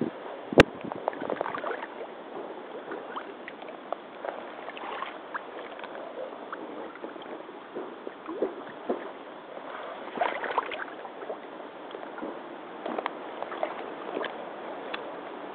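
Rubber hip boots wading through a shallow puddle: water sloshing and splashing with each uneven step. A single sharp crack sounds about half a second in.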